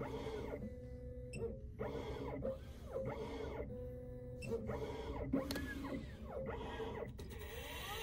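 Xhorse Condor XC-Mini Plus automatic key cutting machine at work cutting a key by code: its motors give rising-and-falling whines about once a second as the key is fed past the spinning cutter, over a steady hum.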